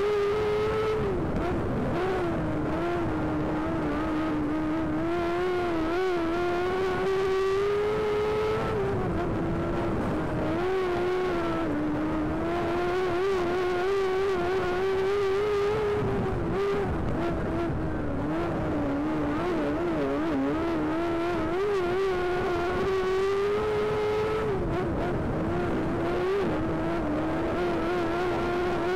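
Race car engine running hard around a speedway oval, its note climbing along each straight and dropping sharply as the throttle is lifted for each turn, about every seven to eight seconds.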